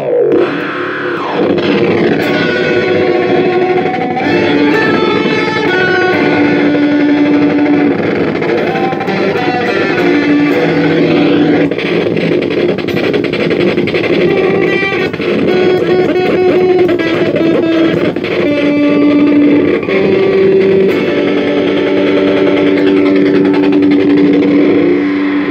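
Electric guitar played through a circuit-bent Joyo Classic Flanger pedal, sustained notes with a flanging effect on them. The flanger's sweep rises and falls clearly near the start and again near the end as its knobs are turned.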